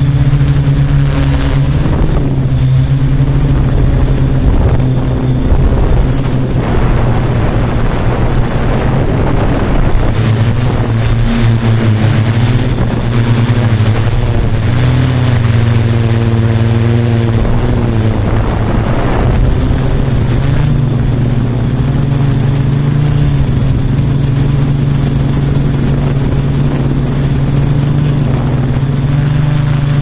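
Multirotor drone's electric motors and propellers humming steadily. The pitch shifts as the motors change speed partway through, then settles again.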